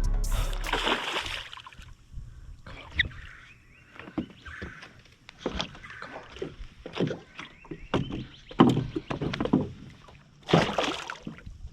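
Water splashing and irregular knocks and rattles in a small boat while a hooked snook is fought to the side of the boat. There is a noisy splash near the start and a louder one near the end.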